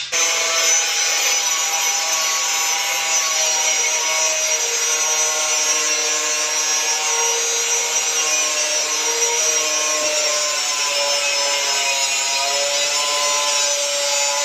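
Electric angle grinder with a cutting disc cutting through a PVC wall panel: a steady, loud cutting whine that wavers a little in pitch.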